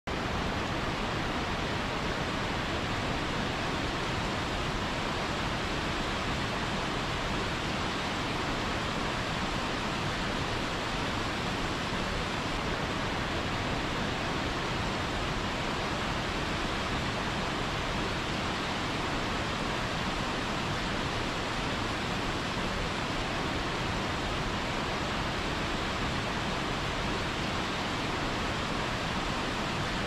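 Waterfall pouring onto boulders into a pool: a steady, unbroken rush of falling water.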